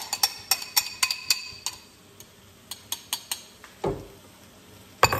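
A metal utensil clinking against the emptied egg bowl in a series of short, sharp taps, with a duller knock a little before the end.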